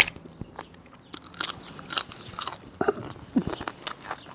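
A person chewing and crunching a mouthful of food close to the microphone, with irregular small crunches and mouth clicks.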